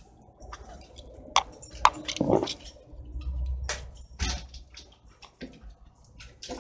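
Irregular light taps and clicks of steps and dog claws on a wooden deck, with two sharp knocks a little over a second in and a scuffing noise just after. A low rumble comes in around the middle.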